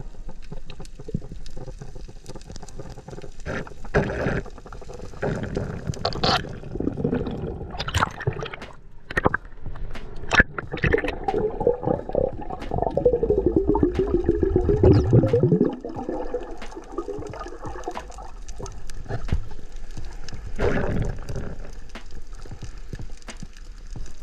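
Water gurgling and sloshing, with scattered sharp clicks and a louder swirling gurgle in the middle that sweeps down in pitch and cuts off suddenly.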